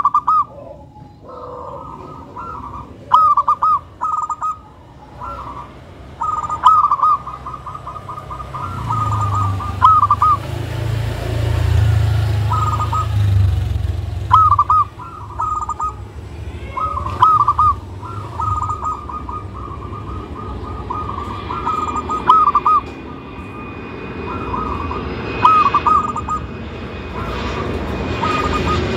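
Zebra dove (local perkutut) singing its fast staccato cooing phrases over and over, a short burst every second or two. A low rumble swells and fades in the middle.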